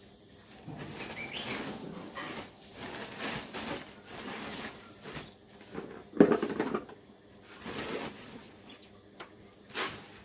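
Handling a sack of chicken feed: irregular rustling of the sack and the feed as it is scooped into a plastic bucket, with one loud knock about six seconds in and a sharp click near the end. A faint steady high tone runs underneath.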